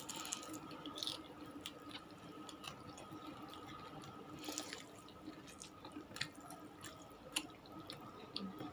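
Quiet, wet mouth sounds of someone chewing food: scattered soft clicks and smacks over a faint steady hum.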